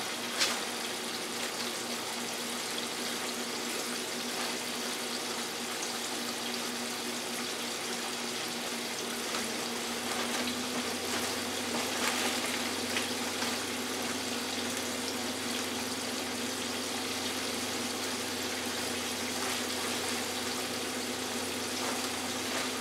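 Hot oil sizzling steadily in a small electric countertop deep fryer as floured jumbo shrimp are dropped in, with a few brief clicks and a steady low hum underneath.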